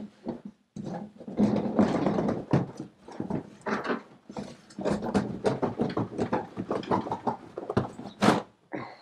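Large cardboard box being handled and its printed lid slid off the inner box: irregular cardboard scraping, rubbing and rustling with soft thuds, and a sharp scrape near the end.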